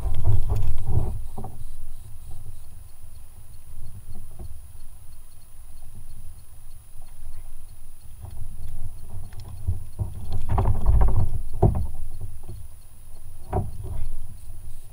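Knocks and rattles of a landing net and fishing gear being handled on a kayak, in a few short clusters: one at the start, a longer one about two thirds of the way in, and a brief one near the end, over a steady low rumble.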